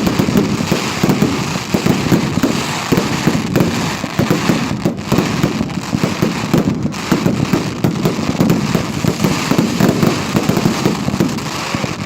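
Fireworks at a display going off in a dense, rapid barrage of bangs and crackles, with no let-up.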